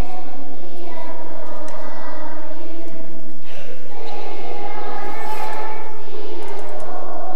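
Children's choir singing, with long held notes and a brief break about three and a half seconds in, over a steady low hum.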